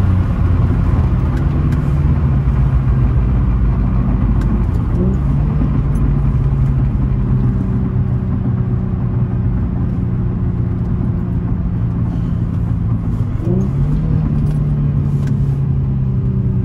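Infiniti G35's naturally aspirated VQ35DE V6 running steadily under way, heard from inside the cabin. Its pitch rises briefly about five seconds in and again near the end.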